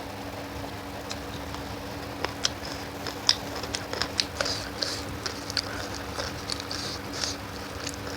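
Close-up wet chewing and lip-smacking of someone eating chicken leg curry: irregular sharp clicks and smacks, several a second, over a steady low hum.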